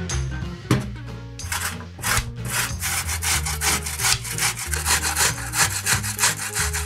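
A boiled, peeled potato rubbed down a stainless-steel box grater in quick rasping strokes, about four a second, starting about a second and a half in. Soft background music plays underneath.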